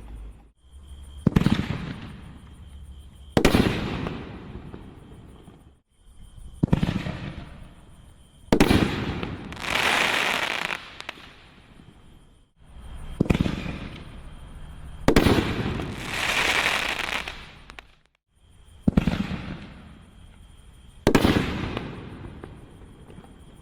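Consumer 1.75-inch canister firework shells being fired in a row: about eight sharp booms a couple of seconds apart, each fading away after it, with two longer hissing stretches near the middle.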